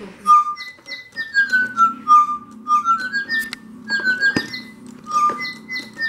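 Digi Birds electronic toy birds whistling a tune of short stepped notes with quick chirps over it, through their small speakers. A low hum runs underneath, and there are two sharp clicks midway.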